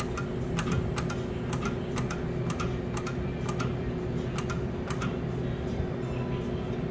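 Electronic skill game machine ticking as its reels spin: a run of sharp clicks, about two a second, over a steady low hum.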